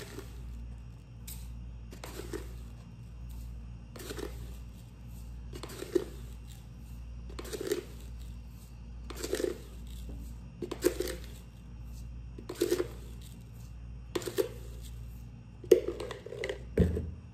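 White granulated sugar being scooped out for measuring: a short gritty scrape repeated about every second and a half, around ten times.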